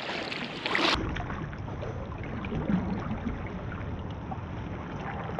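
Steady wind rumble on the microphone over shallow water, with a few faint ticks scattered through it.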